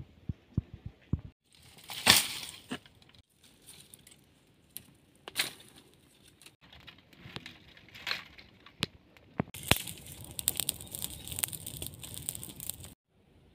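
Dry brushwood twigs snapping and crunching as they are handled and piled up, then from about ten seconds in the dense, fast crackling of the twigs burning in an open fire, which stops suddenly near the end.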